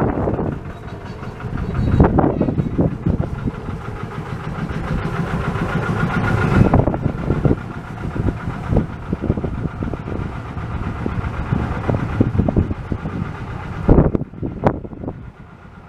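Steam locomotive of the 15-inch gauge Ravenglass & Eskdale Railway working, a low rumble with irregular surges, mixed with wind gusting on the microphone.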